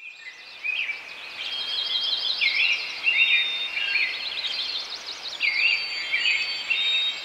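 Songbirds singing: several birds trading short, looping whistled phrases, with a few thin high notes held over them.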